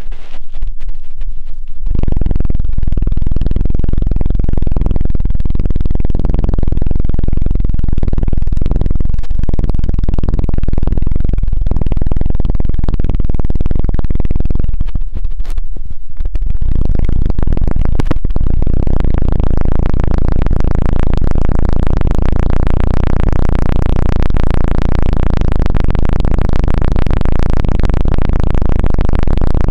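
'Helicopter' ASMR trigger: fingers fluttering rapidly against a binaural microphone's ear, a loud, fast, low thudding rumble that starts about two seconds in. It drops out briefly about fifteen seconds in and comes back brighter and fuller from about eighteen seconds.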